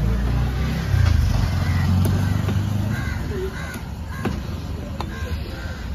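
A motor vehicle's engine rumbles low and loud for the first three seconds, then fades. Crows caw several times, and a cleaver knocks sharply a few times on the fish and the wooden block.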